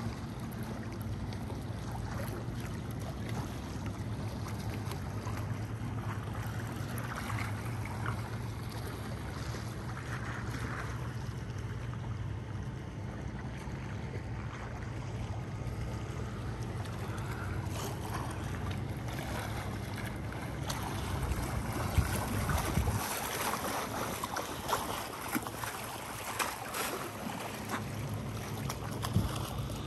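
Wind rushing across the microphone over a steady low hum, with stronger gusts in the last third.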